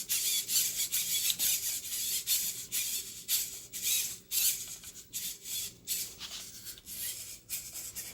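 Small RC servos whirring in short repeated bursts, about two or three a second, as the model motorcycle's steering is worked back and forth.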